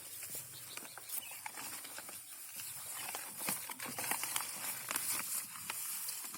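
Irregular rustling and light crackling with scattered sharp clicks, like someone moving through dry grass or reeds on foot.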